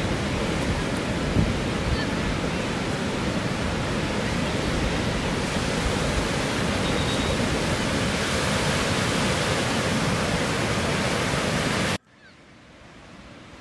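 Sea waves washing in, a steady rushing surf. Near the end it cuts off suddenly, leaving a much fainter rush.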